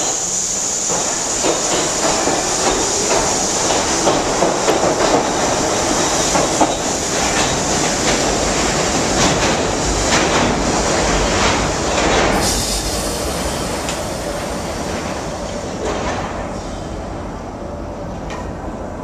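New York City subway train pulling out of the station alongside the platform. There is a high whine at first, then the wheels clatter over rail joints, and the sound fades toward the end.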